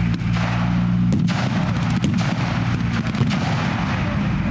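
Scattered blank gunfire and pyrotechnic bangs, sharp shots at irregular intervals, over the engine rumble of an M4 Sherman tank and an armored car driving past.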